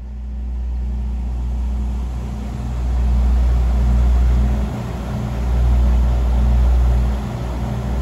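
Diesel train engine running with a deep, steady rumble, growing louder over the first few seconds and dipping briefly twice.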